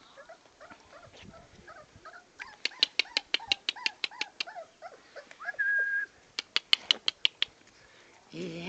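Puppies squeaking and whimpering as they play and wrestle, in many short high squeals. Two quick runs of sharp high ticks, about eight a second, are the loudest sounds, and a short steady whistle-like tone comes just before the second run.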